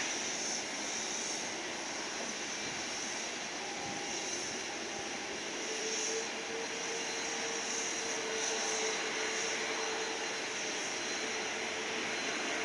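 Jet aircraft noise across an airport apron: a steady rushing, with a steady whine coming in about halfway through.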